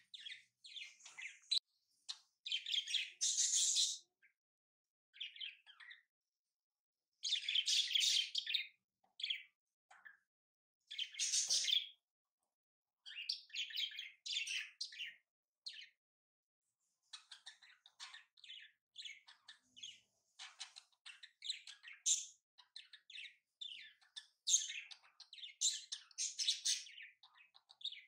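Sheet of paper rustling and crackling as it is folded and pressed flat, in irregular short bursts with brief pauses between them.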